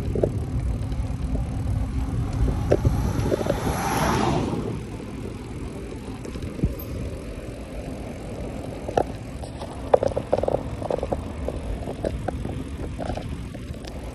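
Riding noise of a mountain bike on a paved path: a steady low rumble of wind on the microphone and knobby tyres on tarmac, louder for the first four seconds or so, then quieter. Short clicks and rattles from the bike come in bursts about two thirds of the way through and again near the end.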